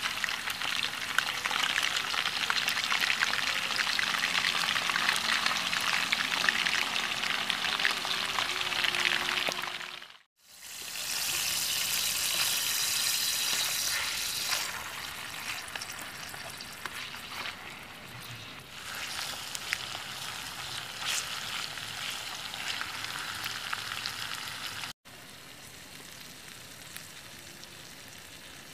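Food sizzling and crackling as it fries in a pan, with stirring. It fades out briefly about ten seconds in, comes back, and cuts off abruptly near the end, leaving a fainter steady hiss.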